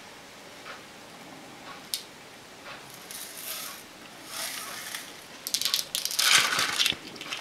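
Soft, short rustles of sugar sprinkles rubbed between fingers and scattered onto iced paska, then a louder patch of rustling with light clicks from about five and a half seconds in.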